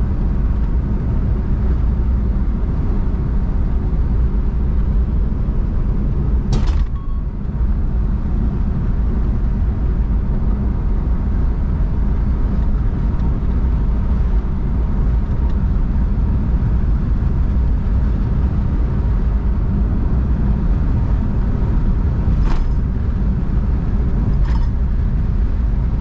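Steady low rumble of a car driving at speed, heard inside the cabin. A sharp click comes about six seconds in, and two fainter ticks come near the end.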